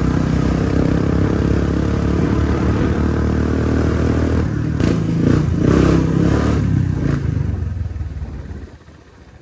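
Suzuki RM250 two-stroke dirt bike engine running, with a few louder surges about halfway through, then fading out about eight seconds in.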